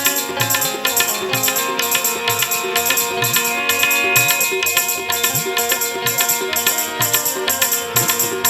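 Instrumental interlude of Gujarati folk music: hand-drum strokes and a shaken rattle keeping a steady beat of about three strokes a second under held melodic notes.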